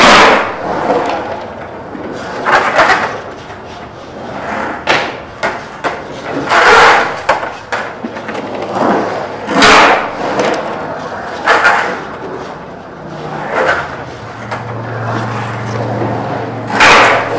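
Skateboard riding an empty concrete pool: wheels rushing across the plaster in loud swells every two to three seconds as the skater carves wall to wall. The metal trucks grind on the pool coping at the start.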